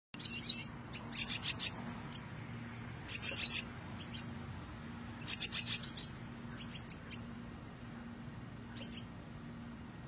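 Male Gouldian finch chirping in four short bursts of rapid, high notes, then a few single ticks, over a faint steady hum.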